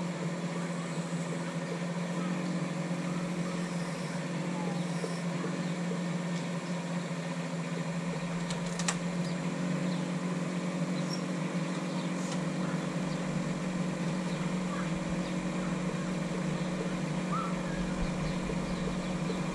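Bobcat E10 mini excavator's small diesel engine running steadily at a constant pitch, with one sharp click about nine seconds in.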